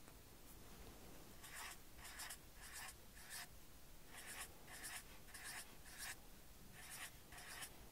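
Felt-tip permanent marker writing zeros on paper: a series of short, faint scratchy strokes, often in pairs.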